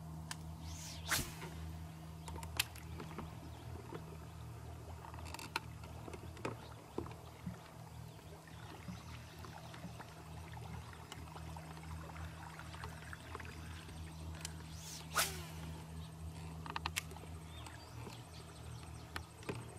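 Steady low hum of the bass boat's electric trolling motor, with a few sharp swishes and clicks from the angler's rod and reel, the loudest about a second in and again about fifteen seconds in.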